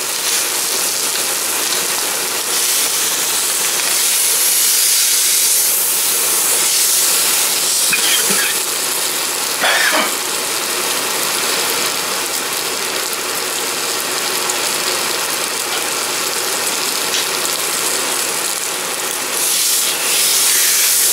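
Pork roast searing in very hot oil in a cast iron skillet: a loud, steady sizzle, swelling again near the end as the roast is turned with tongs.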